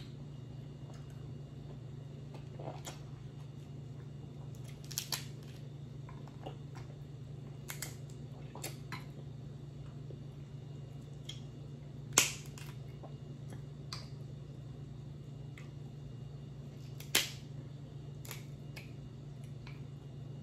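Crab leg shells being cracked and snapped apart by hand: a scattering of sharp cracks and clicks, the two loudest about twelve and seventeen seconds in, over a steady low hum.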